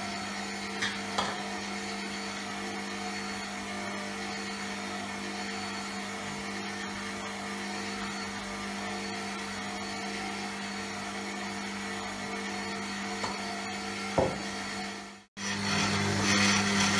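Electric stand mixer running steadily with a dough hook, mixing flour, oil and warm water into bread dough as the water is added gradually. The motor hum holds one even pitch, drops out briefly near the end and comes back louder.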